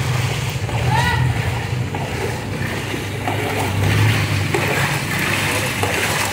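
Steady low drone of motor traffic, with the clink and scrape of a steel ladle stirring crushed ice and milk in a large steel pot. A brief high chirp about a second in.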